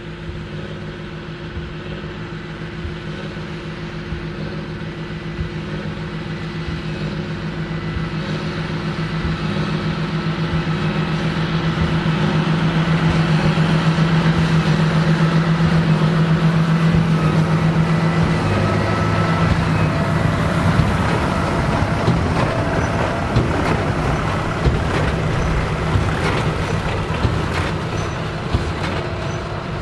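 John Deere 8530 tractor's six-cylinder diesel running under load while pulling a big square baler. It grows louder as it approaches, then drops in pitch about two-thirds of the way through as it passes. Sharp knocks from the machinery come near the end.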